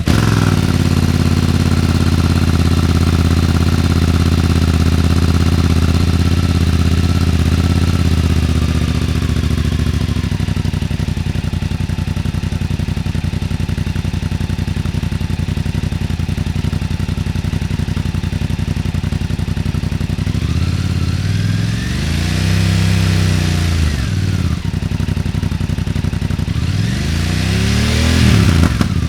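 BMW F900R parallel-twin engine running through a newly fitted MIVV X-M1 slip-on muffler, just after starting. It idles high for about ten seconds, then drops to a lower idle. Near the end it is revved twice, the pitch rising and falling each time.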